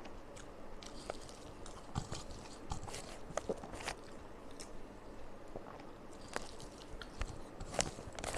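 A person chewing a mouthful of rice and potato and pointed gourd curry, with irregular wet mouth clicks and smacks.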